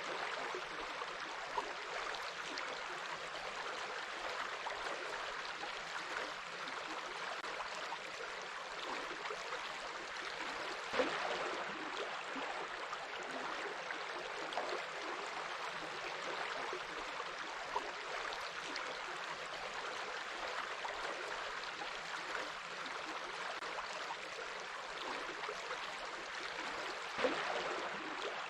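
Stream running steadily over rocks in a continuous babbling rush, with a couple of brief louder spots.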